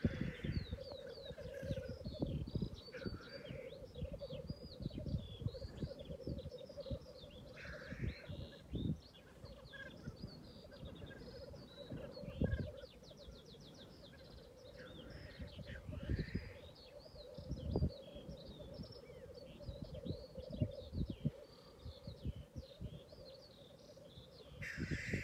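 A lek of male black grouse: a continuous bubbling, cooing chorus from many birds, broken every few seconds by short hissing 'sneeze' calls. Thin, high chirping runs over the top, and low gusts of wind buffet the microphone.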